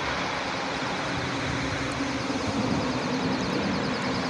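Double-stack container freight train rolling past, a steady noise with a low hum.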